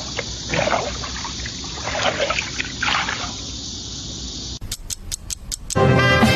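Water splashing and trickling as people dunk their faces into shallow pond water. About four and a half seconds in comes a quick run of about seven sharp clicks, then music with long held notes starts near the end.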